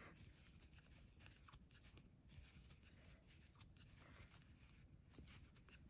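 Near silence, with faint soft scratches and ticks of a crochet hook and yarn as single crochet stitches are worked.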